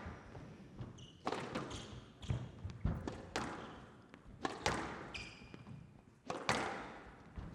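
Squash ball being struck back and forth in a rally, sharp racket hits and wall impacts that ring in a large hall, about seven over several seconds, with a couple of short high squeaks.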